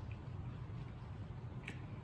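Faint eating sounds: chewing, and wooden chopsticks stirring noodles in a glass bowl, with a soft click about three-quarters of the way through.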